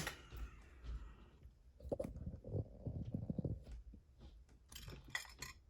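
Hands handling a picked brass padlock as it is taken apart: low fumbling and rubbing noise with scattered light clicks, then a quick run of sharper metallic clicks near the end.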